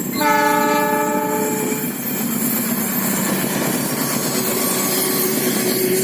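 An Indonesian diesel locomotive sounds its horn for about a second and a half, then the train rolls past with the steady running noise of wheels on rail. A faint wheel squeal joins about four seconds in.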